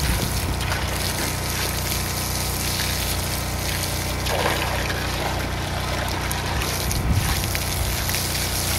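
Water from a garden hose spraying into a plastic bucket: a steady splashing gush over a steady low hum.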